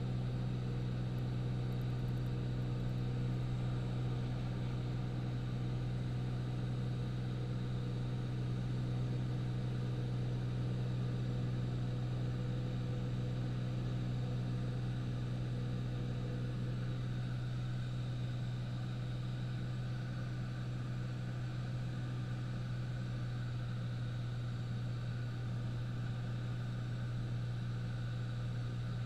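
Steady drone of a light high-wing airplane's piston engine and propeller in flight: a constant low hum with a haze of air noise over it.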